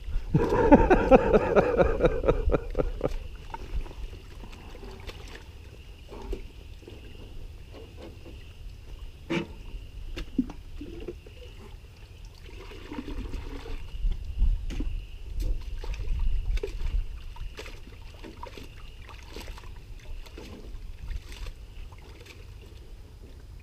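Small motor running steadily with water trickling and scattered knocks and clatter; a voice is heard briefly at the start.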